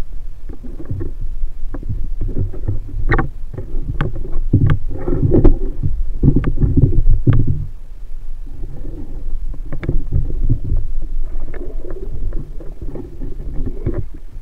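Muffled underwater noise picked up by an action camera in a waterproof housing while spearfishing: low rumbling surges of water with scattered sharp clicks. It is loudest in the middle and quieter toward the end.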